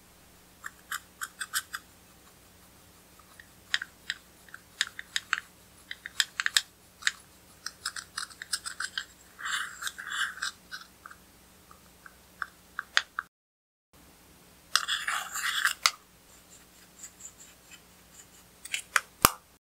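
Small spatula scraping and crumbling pressed red eyeshadow powder in its plastic compact: a series of short, crisp scratches in quick runs, with a denser stretch of scraping about three-quarters of the way through.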